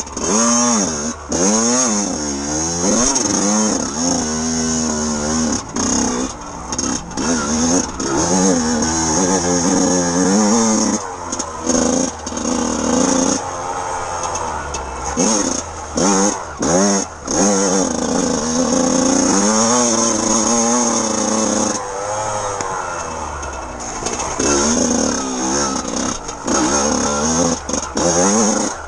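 Yamaha enduro dirt bike's engine being ridden hard, revving up and down again and again, with short drops in sound as the throttle is rolled off.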